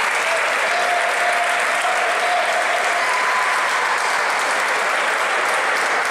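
Boxing arena crowd applauding and cheering, a steady roar of clapping and voices that does not let up.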